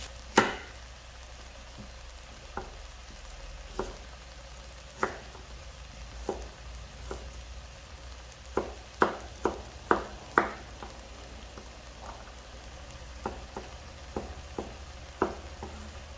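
Kitchen knife cutting potatoes and carrots on a wooden cutting board: irregular sharp knocks of the blade on the board, quicker for a moment about nine seconds in. Under them, a steady sizzle of pork and onions frying in the pot over a turned-down gas flame.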